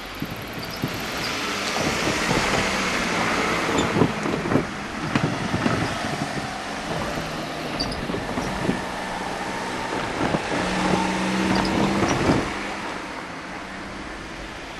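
Motor vehicle passing close by: engine and tyre noise builds and falls away about three-quarters of the way through, with a few short knocks along the way.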